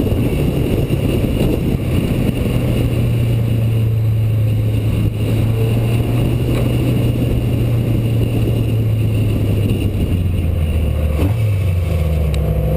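Rally car engine running hard at steady revs, with road and wind noise, then dropping in pitch about ten seconds in as the car lifts off and slows.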